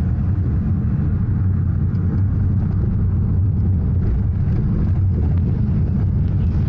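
Steady low rumble of a car's engine and tyres, heard from inside the cabin as it drives along a rough street.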